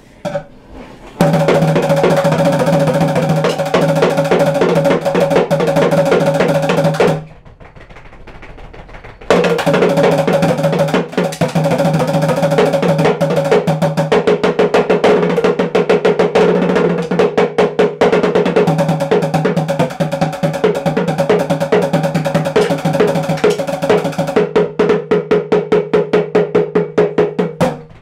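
Drum roll played with drumsticks on a bongo drum: a fast run of strokes over the drum's ringing tone, which breaks off for about two seconds, then starts again and carries on, the strokes growing more distinct toward the end.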